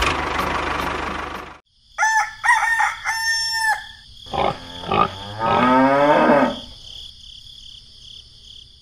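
Farmyard animal sound effects: a loud rushing noise that cuts off about a second and a half in, then chicken calls around two seconds in, and a longer falling livestock call around six seconds in, over a steady high chirping.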